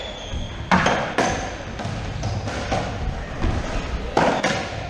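Racquetball rally: a series of sharp impacts of racquet strikes and the ball hitting the walls and floor, echoing in the enclosed court. There are two hits about half a second apart about a second in and two more in quick succession near the end.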